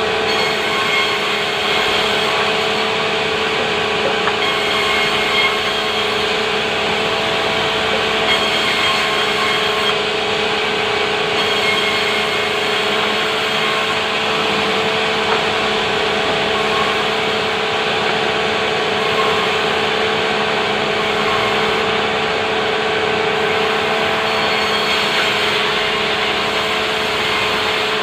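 Sawmill saw running steadily through timber, a continuous loud rasping noise with a constant whine that does not change.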